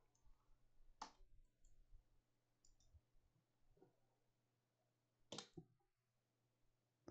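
Near silence broken by a few sharp computer mouse clicks, the clearest about a second in and about five and a half seconds in.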